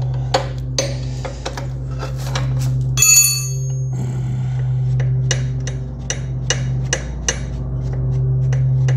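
Hand tools working the A-arm mounting bolts on an ATV: a string of short metallic clicks and knocks, with a ringing metal clink about three seconds in. A steady low hum runs underneath.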